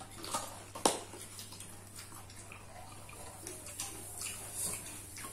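Eating sounds close to the microphone: chewing and small clicks and taps of food and plate, with one sharper click about a second in, over a steady low hum.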